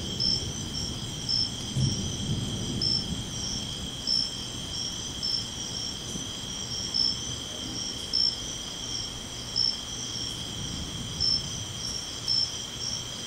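Night-time crickets trilling steadily, with a higher chirp repeating about every two-thirds of a second. The low rumble of thunder from the lightning strike dies away over the first few seconds.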